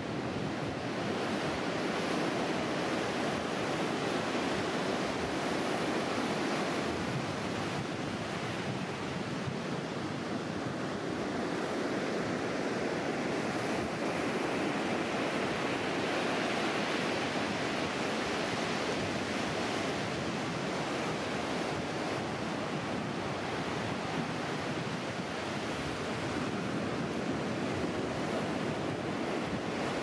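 Pacific Ocean surf washing into the shallows: a steady rush of small waves, swelling briefly about halfway through as a wave breaks and runs in.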